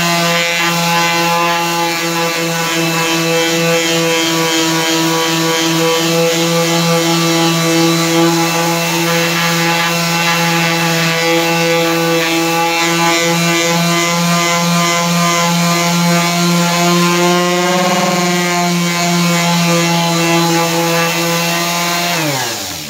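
A 240-watt quarter-sheet orbital palm sander runs steadily on soft pine crate board with a constant motor hum. Near the end it is switched off and winds down with a falling pitch.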